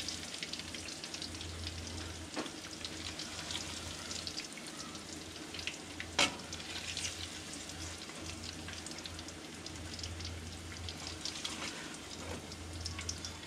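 Breaded crappie fillets frying in hot oil in a skillet: a steady sizzle with small crackling pops, as the fillets are lifted out. A sharp click about six seconds in.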